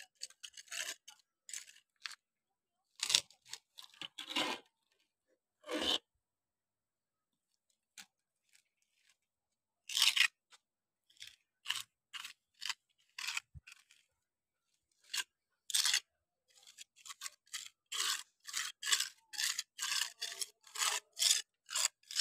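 Small hand trowel scraping grout into a crack in a concrete floor and smoothing it over: short scraping strokes in clusters, several a second at times, with a pause of a few seconds about six seconds in and a shorter one around fourteen seconds.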